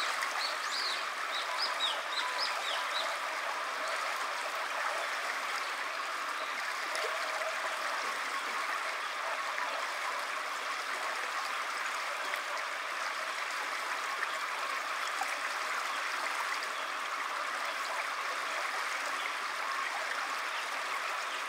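Small stream running, a steady rush of flowing water, with a few short high chirps in the first three seconds.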